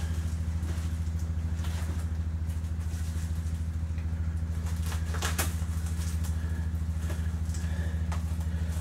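A steady low machine hum runs throughout. Over it come a few short rustles and crackles of bubble wrap and tape as a knife cuts the wrapping open, the sharpest about five seconds in.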